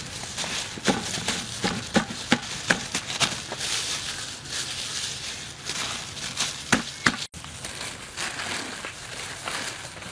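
Plastic gloves and a plastic sheet crinkling and rustling as hands press and spread cooked rice, with short sharp crackles and clicks in a run during the first few seconds and again about seven seconds in.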